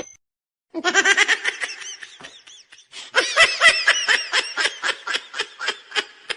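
A person laughing in two long bouts of rapid, pulsing laughter, the second starting about three seconds in.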